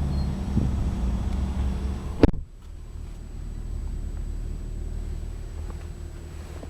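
A car door slams shut about two seconds in. A low steady hum that runs before it drops to a quieter, muffled hum afterwards.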